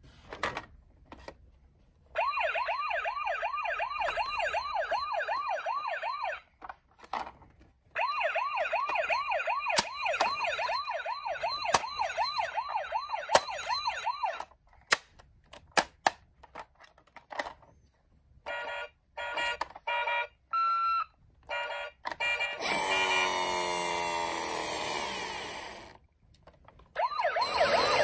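Electronic sirens from battery-powered toy ambulances. A fast siren sweeps up about three to four times a second in two long stretches. Then come clicks and short electronic bursts as the toys are handled. A different siren with falling sweeps plays for a few seconds, and the fast siren starts again near the end.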